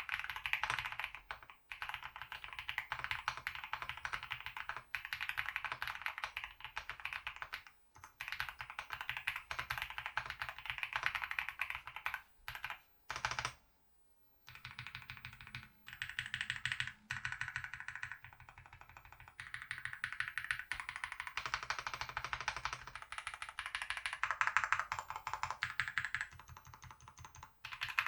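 Fast, continuous typing on a mechanical keyboard with GMK keycaps and lubed Akko Cream Yellow V3 linear switches. The keystrokes run densely, with a brief pause a little before halfway.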